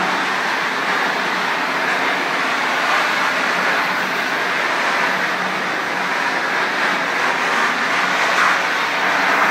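Hot-water pressure washer (3,500 psi, 260 °F water) spraying onto a tile floor: a steady, unbroken hiss of the jet, with a faint low hum from the machine underneath.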